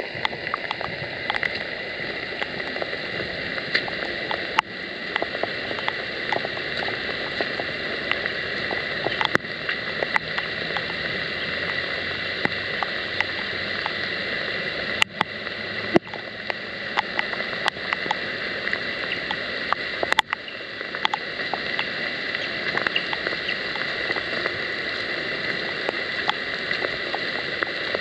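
Heavy rain and rushing water: a steady hiss of water with scattered sharp taps of drops hitting close by.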